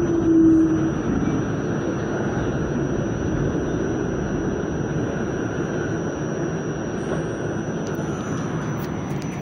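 New York City subway train heard from inside the car as it brakes: the motors' whine falls in pitch during the first second, then a steady rumble of wheels on rails with a faint high whine, and a few light clicks near the end as it slows into a station.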